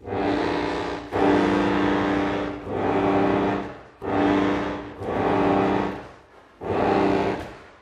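Accordion holding a sustained chord that starts suddenly out of silence, then swells and fades in repeated bellows pulses, about one every one and a half seconds.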